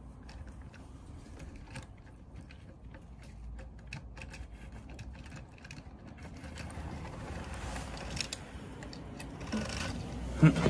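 Small electric motor of a model railway locomotive running with a steady whirr, with a few light clicks.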